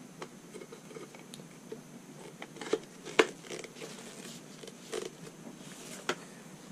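Hollow white plastic poles being handled and twisted together, with scattered small clicks and knocks, the sharpest about three seconds in, and a brief rustle near the end.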